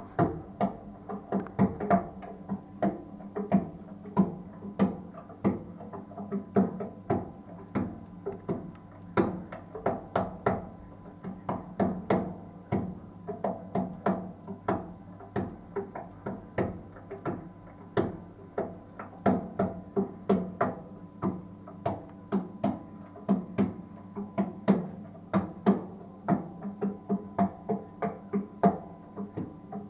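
Beretta gas boiler knocking and crackling irregularly while heating hot water: about two to three sharp knocks a second, each with a short ringing after it.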